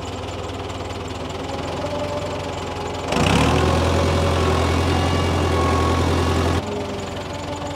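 Tractor engine running steadily. From about three seconds in it runs louder for roughly three and a half seconds, under load from the hydraulics lifting a fence post on the fork, then drops back suddenly. This tractor is a bit down on hydraulic power.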